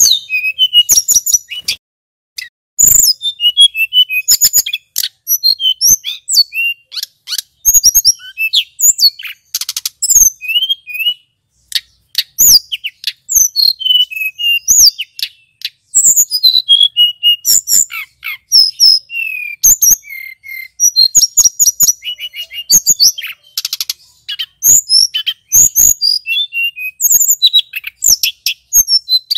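Male tledekan gunung, a blue flycatcher (Cyornis), singing a fast, varied song of high whistles, quick rising and falling notes and rolling trills, broken by a few short pauses.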